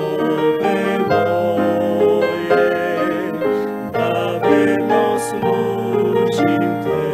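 Slow hymn tune played on a piano-type keyboard, with long-held bass notes under changing chords.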